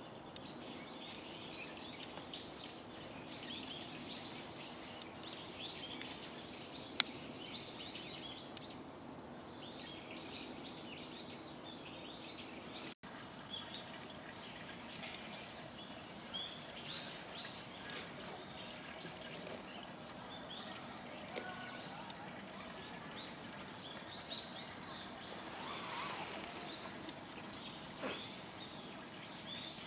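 Outdoor ambience of many small birds chirping and twittering over a faint steady hum, with one sharp click about seven seconds in.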